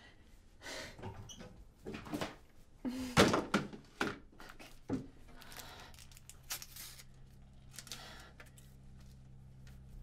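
Thunks and clatters of things being handled at a kitchen counter, an irregular run of knocks with the loudest about three seconds in. A low steady hum comes in about halfway through.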